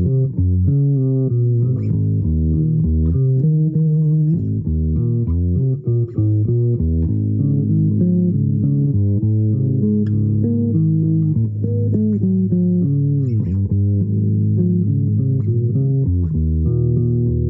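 Plucked string instrument in a low register playing an improvised melody, one note after another with steady sustain, and a note that slides down and back up about thirteen seconds in.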